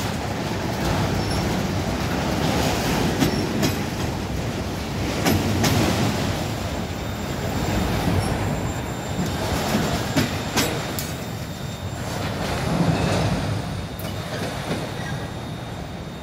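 Empty autorack freight cars rolling past at speed: a steady rumble of steel wheels on rail with scattered sharp clicks. It fades slightly as the end of the train passes and it draws away.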